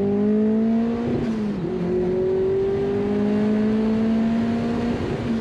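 Turbocharged 1999 Mazda Miata four-cylinder engine at full throttle, heard from inside the cabin. It revs up, drops in pitch about a second in as it shifts up, then climbs steadily through second gear until it drops again near the end. The car is pulling hard with a longer 3.6 final drive.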